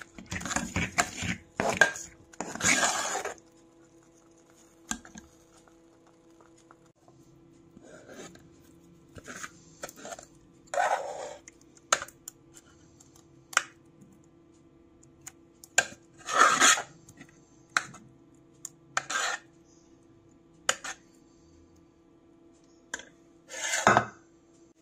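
A metal spoon scraping thick khoya around a cooking pot in quick strokes for the first few seconds. Then scattered single clinks and short scrapes of the spoon against the pot and a glass bowl as the khoya is moved out. A steady low hum runs underneath.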